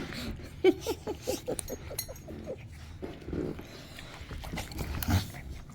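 A sleeping dog snoring: a quick run of short pitched snorts, about four a second, over the first couple of seconds, then a longer breath and a sharper snort near the end.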